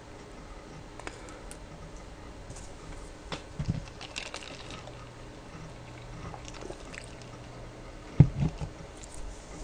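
Quiet room tone with a faint steady hum, scattered small clicks and two soft thumps, the louder one near the end.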